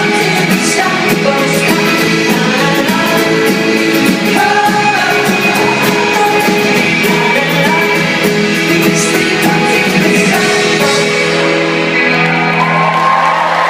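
Indie folk-rock band playing live with singing and drums in a large hall, heard from the audience. About eleven seconds in the drums stop and the music rings out, and the crowd starts whooping and cheering as the song ends.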